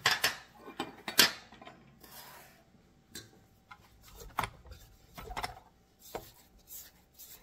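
A rubber spatula scraping and knocking against the stainless steel bowl of a stand mixer while the mixer's motor is off. The sound comes as scattered scrapes and clicks, the loudest about a second in.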